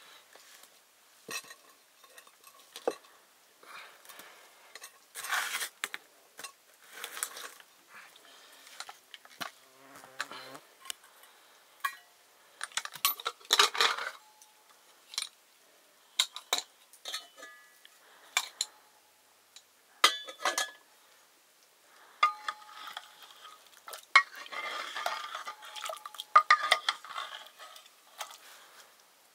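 Metal utensils clinking and scraping against metal dishes in irregular bursts. A few strokes ring briefly, and the clatter is busiest in the last several seconds.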